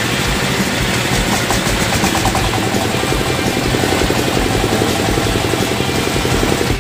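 Small engine running steadily at idle, with a fast even pulse.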